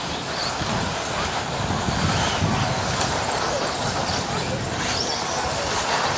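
A pack of radio-controlled 2WD off-road buggies racing, a steady busy noise of their motors and tyres with faint high whines that rise and fall.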